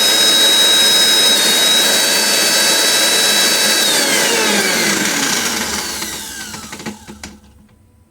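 Electric mixer grinder's motor running at full speed with a steady high whine, then switched off about four seconds in and spinning down, its pitch falling as it fades out over the next three seconds. A few light knocks come near the end as it stops.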